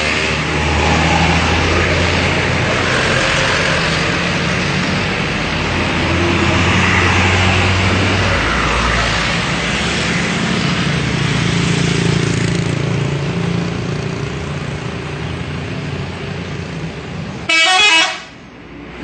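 The multi-tone 'telolet' air horn of an Indonesian bus trails off at the start. Bus engines keep running over steady outdoor crowd noise. Near the end there is a short loud burst, then the sound drops away suddenly.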